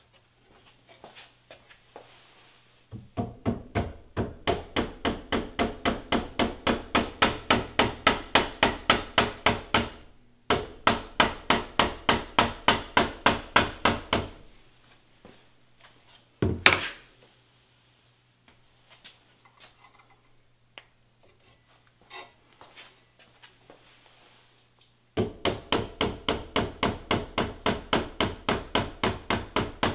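Mallet tapping a handguard rail along an AR-15 barrel, driving the tight-fitting rail onto the barrel nut. Even taps about four a second in three runs with short pauses, and one louder single knock near the middle.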